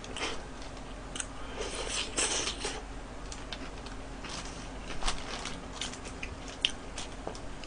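Quiet eating sounds: a burger's paper wrapper crinkling and soft chewing, with a few faint clicks, over a faint steady hum.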